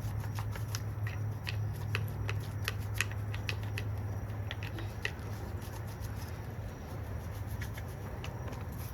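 Irregular scratching and clicking as caked grime is scraped and worked off the plastic and metal of a STIHL 020T chainsaw by hand, busiest in the first few seconds, over a steady low hum.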